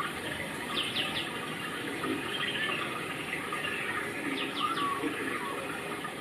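A steady rush like running water, with short high bird chirps in quick runs of three, about a second in and again about four and a half seconds in.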